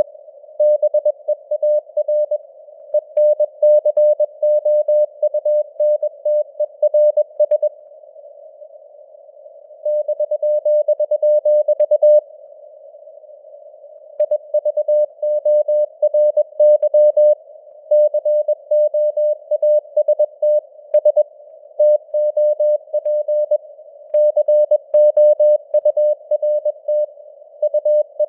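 Morse code sent at 21 words per minute: a single steady beep keyed on and off in fast dots and dashes over a narrow hiss of simulated radio noise, the signal strength fading up and down (QSB). The sending breaks off for about two seconds twice, about eight and twelve seconds in.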